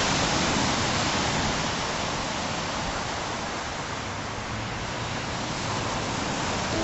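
Ocean surf washing on the beach: a steady rushing that eases off mid-way and swells again.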